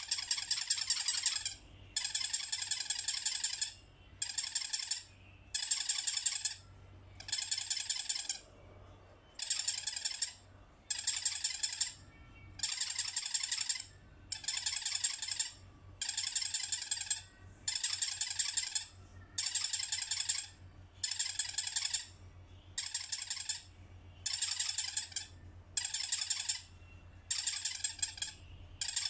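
Squeaker in an elephant soft toy being squeezed over and over, a burst of high-pitched squeaking about every second and a half, each lasting from half a second to over a second.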